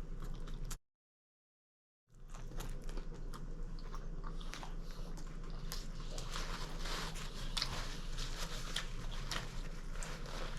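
Close-miked chewing of a mouthful of crispy chicken club sandwich: wet smacks and many quick mouth clicks, with a faint steady hum underneath. The audio cuts out completely for about a second near the start.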